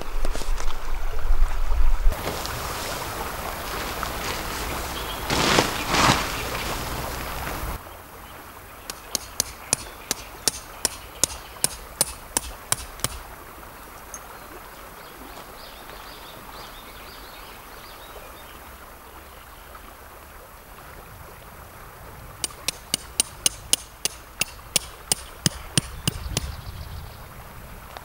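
Rustling of a polyester camping tarp being unpacked and handled, then two runs of sharp hammer strikes, about three a second, as the tarp's pegs are driven into gravel ground.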